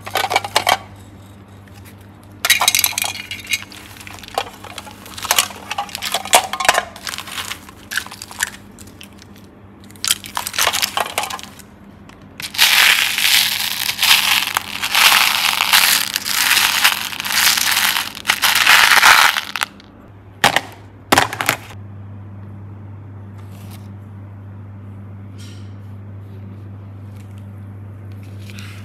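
Hard plastic toys clicking and clattering as they are handled, then a continuous rattle of a hand stirring through a tray of small round plastic beads for about seven seconds. After two more clicks, only a low steady hum remains.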